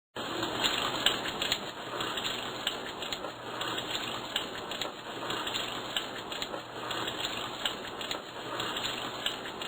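Steady crackling hiss full of small clicks, like rain. It starts suddenly and later cuts off dead, as an inserted sound clip does.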